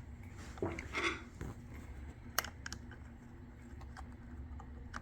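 Small parts being handled and fitted by hand: soft rustling early on, then one sharp click about two and a half seconds in and a few light ticks.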